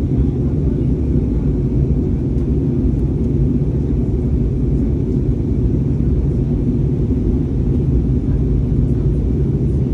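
Steady low rumble of an Airbus A320neo airliner's engines and airflow heard from inside the cabin, even in level with a faint drone of low tones beneath it.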